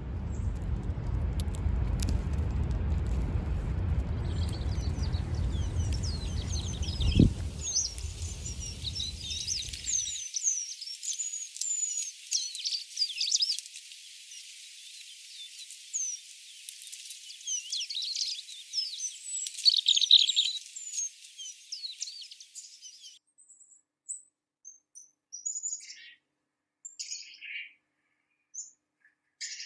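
Small birds chirping and twittering in quick, high calls. For about the first ten seconds a low rumbling noise lies under the sound; near the end only a few separate chirps come, with silence between them.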